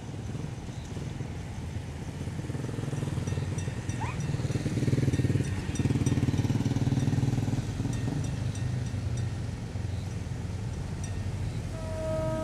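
A low engine rumble swells over several seconds and then eases off. Just before the end, the diesel locomotive's air horn starts to sound a steady chord of several notes.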